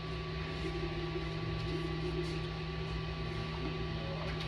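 A steady low electrical hum with a thin high tone over it, and faint indistinct voices in the background.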